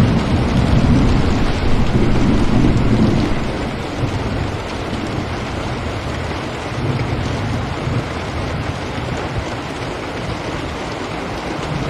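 Steady rain falling, with a low rumble under it that is heaviest for the first three seconds or so, dies down, and swells again near the end.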